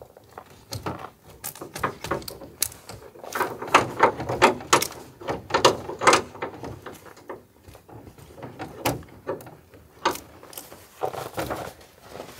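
Ratchet tie-down strap being worked loose from a load: a string of irregular metal clicks and clacks from the ratchet, with rustling of the strap webbing.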